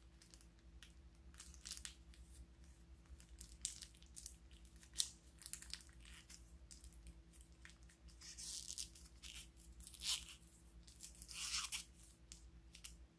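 Thin plastic piping bag crinkling and crackling as a hand squeezes and folds it to push out slime. It is faint, with scattered small crackles and a few longer crinkling bursts in the second half.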